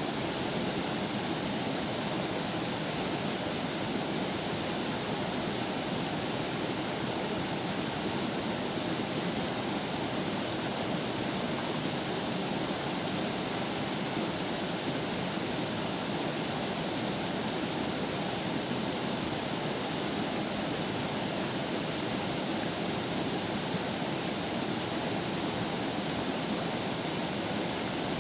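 River water flowing, a steady, even rushing that does not change.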